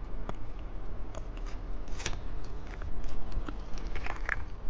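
Plastic candy packaging and small items being handled, with scattered crinkles and sharp clicks at an irregular pace.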